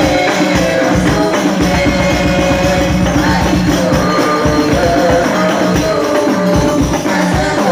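Sholawat devotional singing by a woman's voice over a group of rebana frame drums with jingles, beaten in a steady, busy rhythm.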